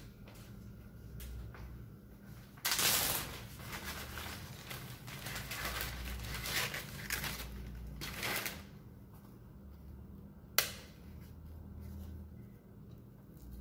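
Rustling, crinkling handling noise that starts suddenly and runs for about six seconds, followed a couple of seconds later by a single sharp click, over a low steady hum.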